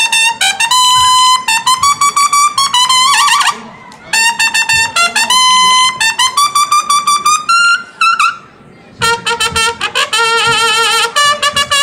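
A lone brass horn playing a solo military-style call: three phrases of crisp, quickly repeated high notes stepping up and down, with short pauses between them and a wavering, shaken note in the last phrase.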